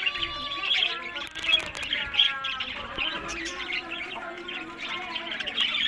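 Budgerigars chirping and warbling without a break, a dense chatter of quick chirps mixed with short whistled notes.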